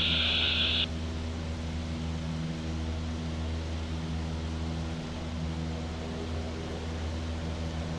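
Light aircraft's propeller engine droning steadily in the cabin while the plane climbs back out into the circuit. A burst of radio hiss cuts off about a second in.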